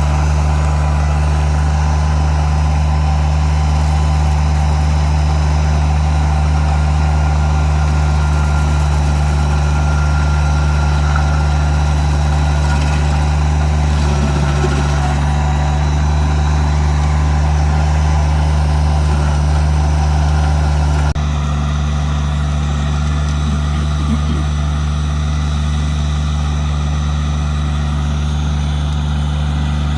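Kubota BX2350 compact tractor's three-cylinder diesel engine running at a steady speed. About two-thirds of the way through, the sound drops suddenly to a slightly lower level and stays there.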